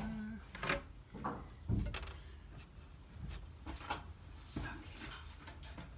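Scattered wooden knocks and clunks from framing lumber being handled and set in place, the loudest a low thud about a second and a half in.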